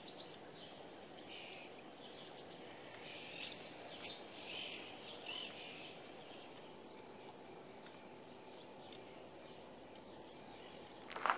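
Faint outdoor background of steady low noise, with small birds chirping now and then in the first half. A short sharp click near the end.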